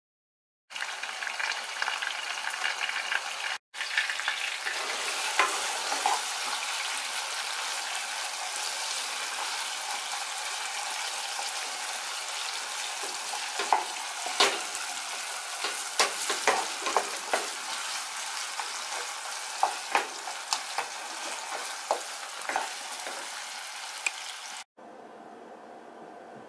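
Meat frying in a saucepan, sizzling steadily while a wooden spatula stirs and scrapes it, with many sharp clicks and scrapes. Near the end it cuts to a much quieter steady hiss.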